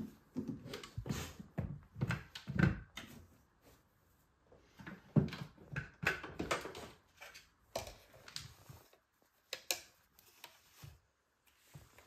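Plastic knocks, clicks and rattles as the clear cyclone dust container of a Bosch BGS21X320 bagless vacuum cleaner is unlatched, lifted out, set down on the floor and its lid opened. The knocks come in separate clusters, with short pauses about four seconds in and again near the end.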